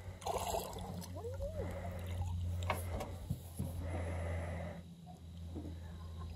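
A person's breathing, a noisy in-and-out breath roughly every two seconds, with one short rising vocal sound about a second and a half in, over a steady low hum.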